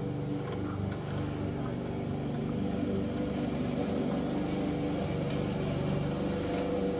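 Steady low machine hum running on without change, with a few faint clicks as the scroll saw's blade clamp is handled.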